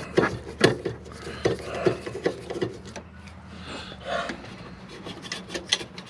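A screwdriver and hand scraping and tapping around the sheet-metal burner access cover of a Dometic RV refrigerator: irregular small clicks and rubbing.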